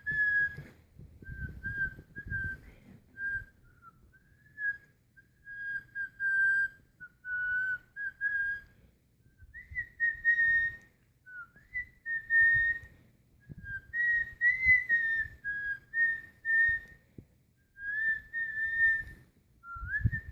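A person whistling an off-key tune in short notes and phrases with brief pauses, with puffs of breath between them.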